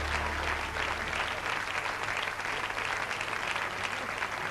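Studio audience applauding, a dense steady patter of many hands clapping. A low held tone, the tail of the music just before, fades out about a second in.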